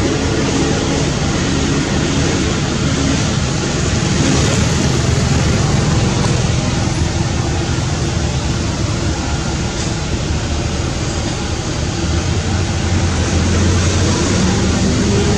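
Steady low rumble and hiss of nearby motor traffic, with a low engine hum underneath.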